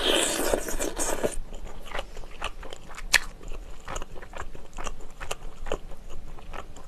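Close-up eating sounds of pork neck-bone meat being bitten off the bone, a dense noisy stretch in the first second and a half, then scattered small clicks and crunches of chewing and of fingers picking meat from the bone.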